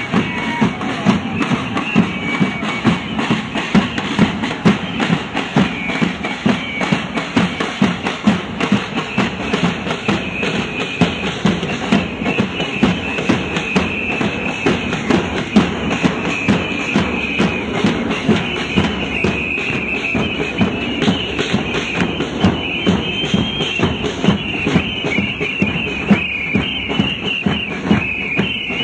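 Drums, bass drums among them, beaten in a steady marching rhythm, with a wavering high tone over the drumming.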